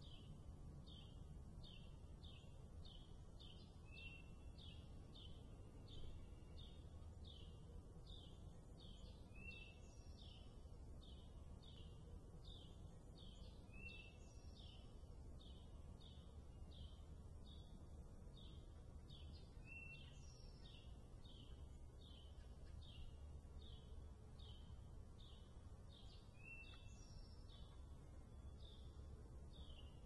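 Faint backyard wildlife chirping: a steady, even chirp repeating about twice a second, with a short falling call every few seconds, over a low steady background rumble.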